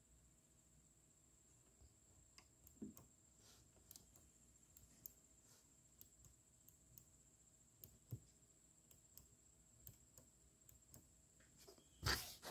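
Near silence broken by faint, scattered clicks as the small switches on a Technics RS-T22 double cassette deck are pressed, with a louder knock near the end.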